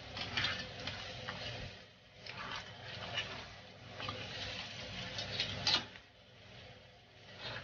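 Cooking utensil stirring seafood in a pan: irregular clinks and scrapes, the loudest strike a little before the end.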